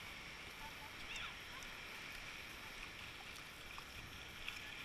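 Beach ambience at the water's edge: a steady hiss of shallow surf and wind, with faint distant voices of beachgoers and one brief raised call about a second in.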